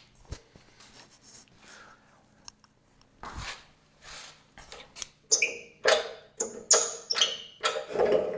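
Short squeaks and scrapes of sawmill hardware being handled, coming as a quick run of separate sounds from about five seconds in after a quiet start, over a low steady hum.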